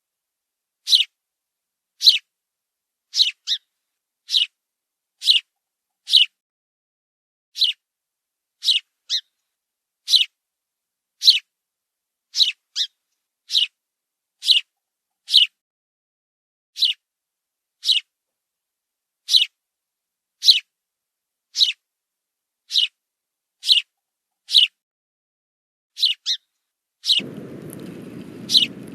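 Short, high bird chirps repeated about once a second, each a quick downward sweep, some coming in close pairs. A low, steady background hiss comes in near the end.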